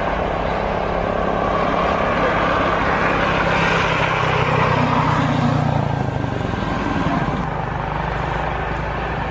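Jet engines of a Boeing 787-9 at takeoff power during the takeoff roll: a steady rumbling roar that swells to its loudest about four to six seconds in, then eases back a little as the airliner rolls away.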